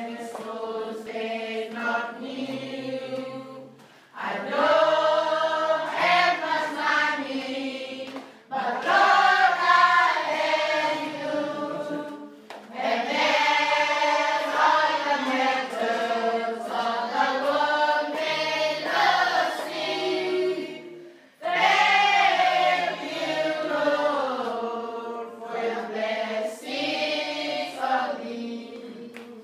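A group of schoolchildren singing a song together, in long phrases broken by short pauses.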